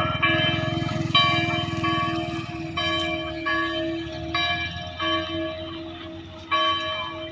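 Church bell tolling, one ringing stroke about every second and a half, over a vehicle engine that fades away as it moves off.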